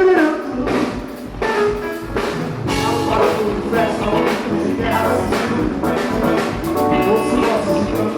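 A band playing, with a drum kit keeping the beat.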